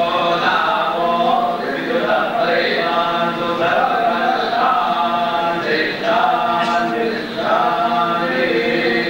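Several male priests chanting Vedic mantras (Veda ghosha) together, a steady unbroken recitation.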